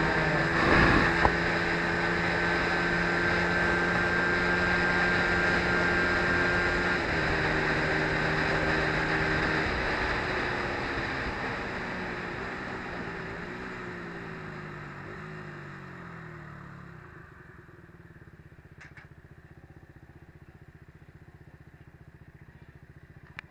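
Sport motorcycle engine running steadily at cruising speed with wind rush. Through the middle the engine pitch falls step by step as the bike slows down, and it settles to a much quieter low running for the last several seconds.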